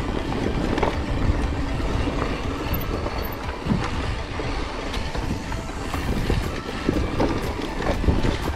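Mountain bike riding over a rough track: a steady rushing rumble with frequent rattles and knocks from the bike.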